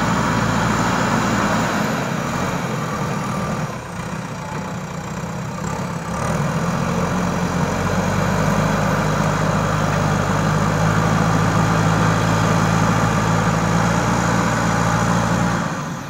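JCB 3DX Super backhoe loader's diesel engine running steadily while the front loader bucket works soil. It eases off briefly about four seconds in and picks up again around six seconds in.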